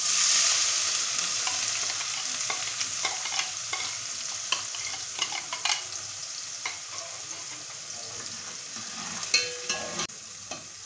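Freshly added chopped onions sizzling in hot oil in an aluminium pot, a loud hiss that slowly eases off. A metal spoon stirs them, clinking against the pot now and then, with a burst of clinks near the end.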